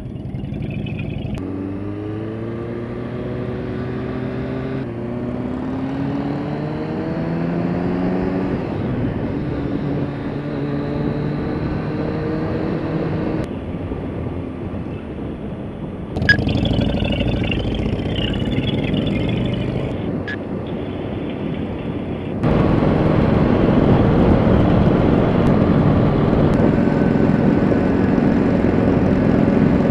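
Kawasaki sport bike's engine accelerating away through several upshifts, its pitch climbing and dropping back with each gear change. From a little past halfway, steady wind rush at speed takes over and grows louder.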